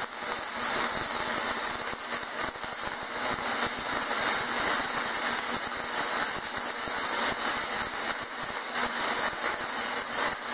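Self-shielded flux-core wire welding arc on steel, crackling and sizzling steadily as a joint is welded out in one continuous bead.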